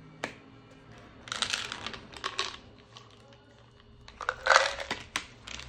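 A plastic multivitamin bottle being opened by hand: a single click, then two bursts of rustling and clicking as the cap comes off and the opening is worked at, the second burst the louder.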